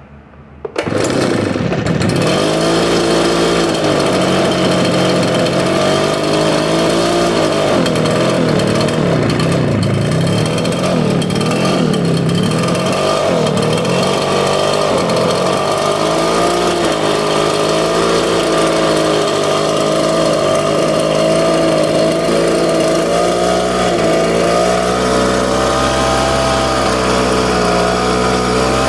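Echo PB770H backpack blower's two-stroke engine starts about a second in after being primed, then runs. Its speed wavers up and down for the first dozen seconds or so, then settles to steadier running.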